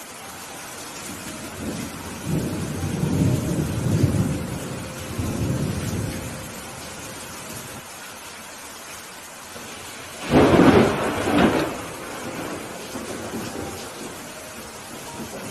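Steady rain with thunder. A low rolling rumble builds about two seconds in and lasts several seconds. About ten seconds in comes a louder, sharper thunderclap, followed by fainter rumbles.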